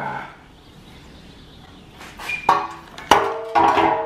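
A bent black metal front-end piece torn from a crashed car clanks onto a concrete floor: two hits about half a second apart, the second louder and left ringing.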